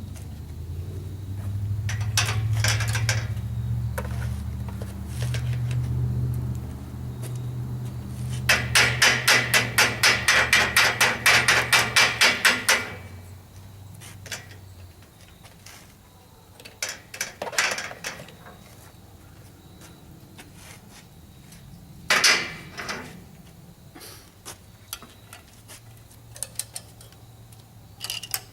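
A fast, even run of hammer blows, about four a second for some four seconds, over a low steady hum. Scattered single knocks and clanks follow.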